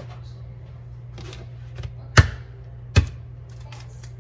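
An egg knocked twice against a hard edge to crack it, two sharp taps under a second apart, with a few softer ticks before them. A steady low hum runs underneath.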